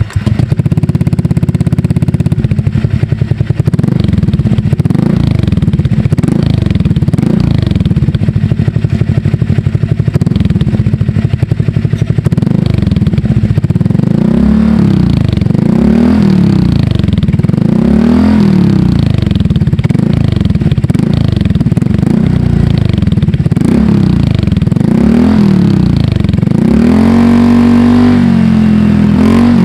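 Honda Click scooter's single-cylinder engine through an SC Project exhaust fitted with an inexpensive bolt-in silencer, idling steadily and then, from about halfway in, revved repeatedly in short blips about every two seconds, with one longer rev near the end.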